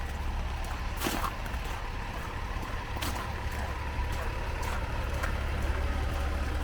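Street traffic on a wet road in the rain: a steady low rumble with a few sharp ticks or knocks.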